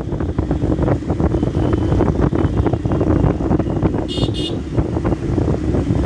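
Yamaha FZ-S motorcycle's single-cylinder engine running while riding, with a steady low exhaust note. A horn gives two short toots about four seconds in.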